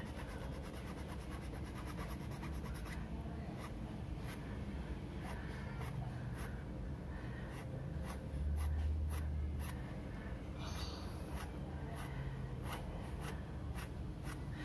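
Round needle file rasping back and forth on a small white plastic rod, thinning the neck below a handmade ball joint. The strokes come quickly at first, then slower and separate. A brief low rumble about eight seconds in.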